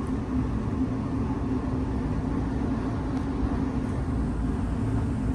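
Steady low rumble of city street traffic, with a constant hum underneath.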